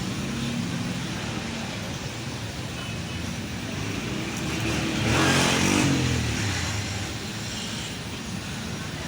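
A Honda CD 70 motorcycle's small single-cylinder four-stroke engine running steadily through its exhaust. About five seconds in, a louder swell lasts a second or so.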